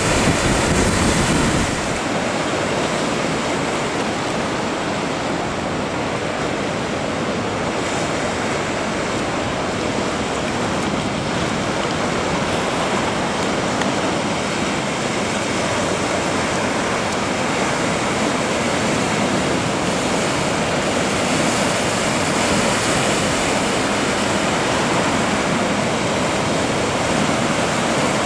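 Heavy surf: waves breaking in rough sea, a steady wash of water noise. It is louder and deeper for the first couple of seconds.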